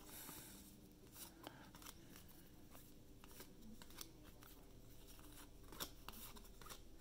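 Faint scattered ticks and slides of cardboard trading cards being thumbed off a stack by hand, one after another, with the loudest tick near the end.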